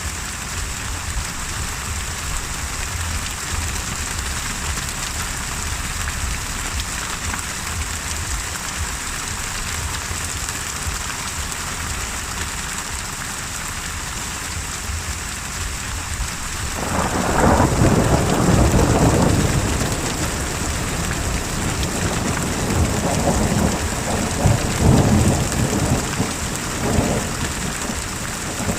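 Steady heavy rain falling, with a thunderclap rumbling in just past the middle that lasts a few seconds, followed by more rolling thunder near the end.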